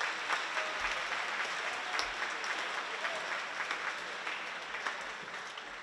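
Audience applauding, a dense spread of hand claps that eases off toward the end.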